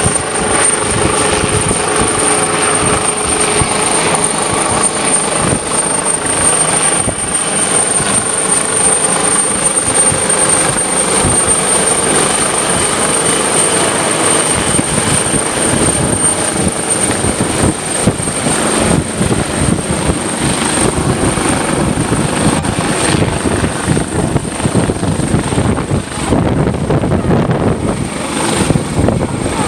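Coastguard rescue helicopter hovering low, its rotor chop and a steady high whine running loud and unbroken. The rotor beat grows heavier in the second half as the helicopter comes closer.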